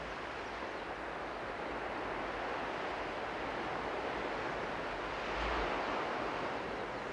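Sea waves washing onto the shore, a steady rushing that swells briefly a little past the middle, with some wind on the microphone.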